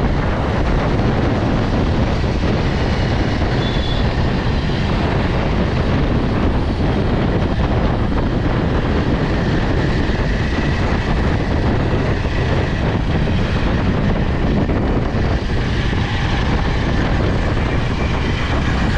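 Steady wind rush on the microphone with road and traffic noise from riding a scooter.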